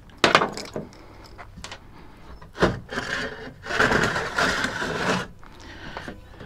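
A caught speckled trout flopping and being handled on a plastic-lined truck tailgate and measuring board: a sharp slap about a quarter second in, another near three seconds, then a second or so of scraping and rubbing.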